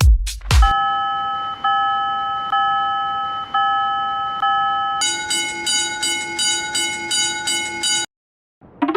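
Cartoon railroad crossing warning bells: a bright, chord-like bell rings in decaying strokes about once a second, then a different, lower bell rings faster, about twice a second, and cuts off suddenly. A quick rising boing-like sweep follows at the very end.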